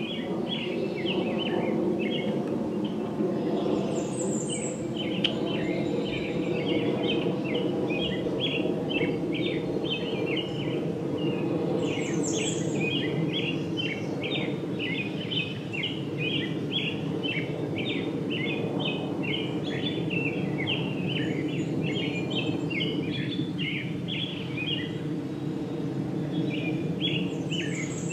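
Songbirds chirping in rapid, continuous chatter, with a few short higher calls about four and twelve seconds in, over a steady low hum.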